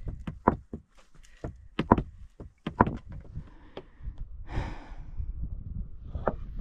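Hiking boots and trekking-pole tips knocking and clicking on rocks in an uneven run of sharp taps while descending a boulder field, with a short hiss about four and a half seconds in.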